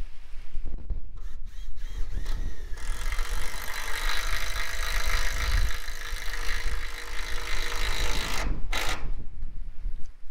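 Cordless driver whining steadily for about five seconds as it drives a screw into a corrugated steel roof panel, with a few short spurts before it and a brief one near the end. Wind rumbles on the microphone throughout.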